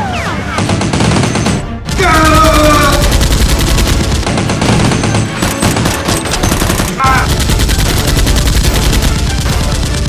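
Rapid automatic gunfire sound effects: a dense, unbroken stream of shots that starts about two seconds in.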